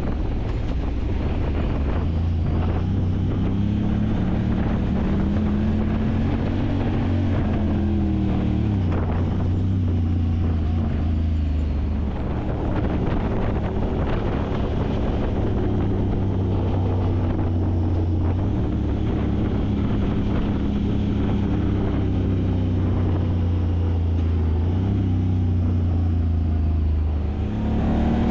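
Side-by-side UTV engine running continuously as it drives a trail, its note rising and falling with the throttle over steady rushing noise of the ride. It eases off briefly about twelve seconds in.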